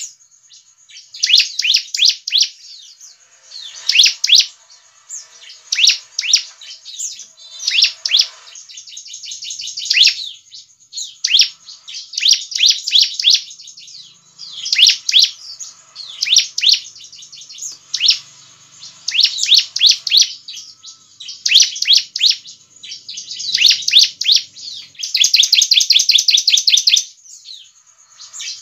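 Bar-winged prinia (ciblek) calling: quick rapid-fire phrases of high chirping notes, each about a second long with short gaps between them, and a longer unbroken trill near the end.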